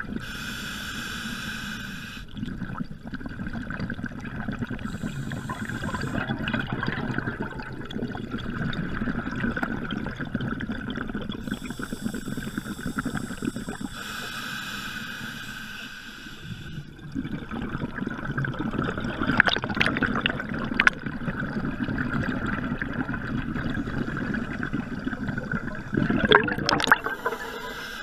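Scuba diver breathing through a regulator underwater: hissing inhalations alternating with long bubbling exhalations, with a few sharp clicks in the second half.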